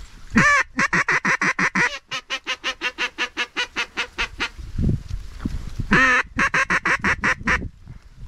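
Duck call blown in hen-mallard quacks to bring in approaching ducks: a long, loud opening note, then a fast, evenly spaced run of short quacks, about six a second. The sequence comes again about six seconds in.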